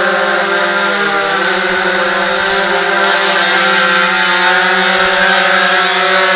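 Nova quadcopter's electric motors and propellers buzzing steadily in flight, with the pitch dipping briefly about a second in as the throttle changes.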